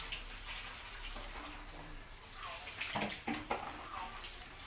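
Steady sizzling hiss of chicken heart skewers grilling over charcoal, with a brief louder burst about three seconds in.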